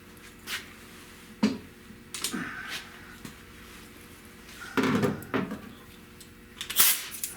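Scattered knocks and clatters of metal tools and parts being handled, in about four short clusters, over a faint steady hum.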